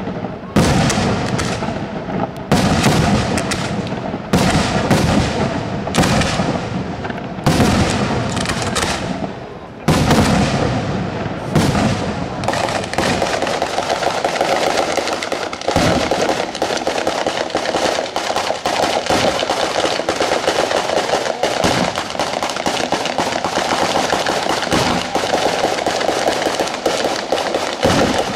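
Daytime fireworks battery (batteria sanseverese): loud separate bangs of bursting bombs every second or two, giving way about twelve seconds in to a dense, continuous rattle of firecrackers going off in rapid succession.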